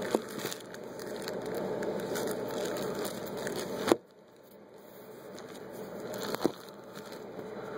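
Close rustling and handling noise with three sharp clicks, from a small tool being worked through the ports of an outboard engine block to probe the piston rings. The rustle drops away abruptly at the second, loudest click, about four seconds in, then slowly returns.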